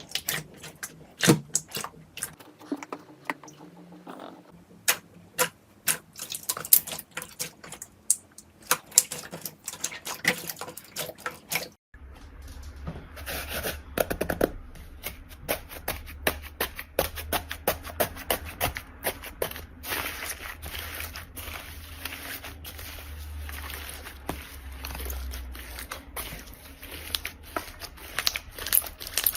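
Slime being pressed, stretched and poked by hand, giving a quick, uneven run of sticky clicks and small pops. About twelve seconds in it cuts to another slime clip, with a low steady hum under the clicking.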